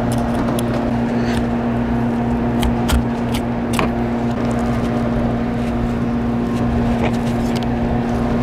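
A boat's onboard machinery running with a steady low hum. Scattered light clicks and taps come from a knife and a fish being handled on a cutting board.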